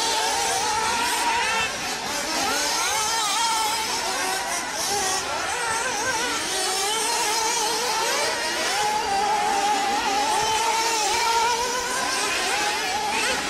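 Radio-controlled off-road cars running on a track, their several high-pitched motors revving up and down at once and overlapping.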